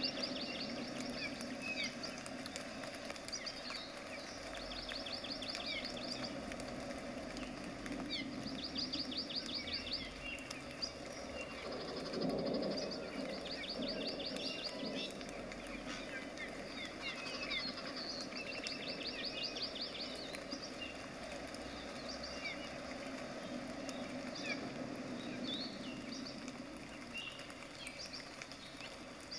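Birds singing: a fast high trill repeated every couple of seconds, with scattered short chirps, over steady low background noise.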